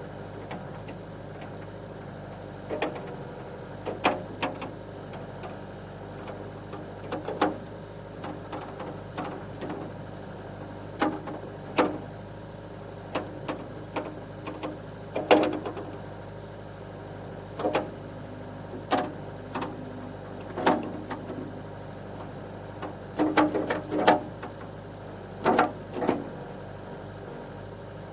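Compact excavator working: its engine runs steadily underneath, with sharp knocks and clanks every second or two, some in quick clusters of two or three.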